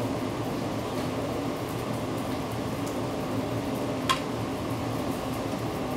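Hot teppanyaki griddle sizzling steadily over a ventilation hum, with one sharp metallic clink about four seconds in.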